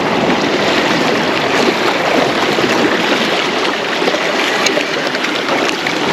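Sea swell washing and splashing over rocks, a steady rushing of water.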